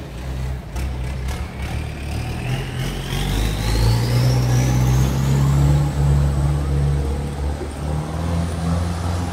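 An engine speeding up: a low, steady drone with a whine that rises in pitch over several seconds and then holds high.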